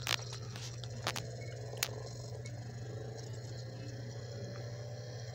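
COOAU DVD player reading a disc at its loading screen: a few sharp clicks in the first two seconds, then a faint whir rising slowly in pitch as the disc spins up, over a steady low hum.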